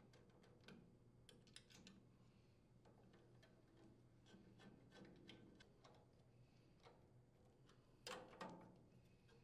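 Faint light clicks and ticks of a nut driver turning screws through a stamped metal air cleaner base as they thread into the carburetor, with a slightly louder clatter of clicks about eight seconds in.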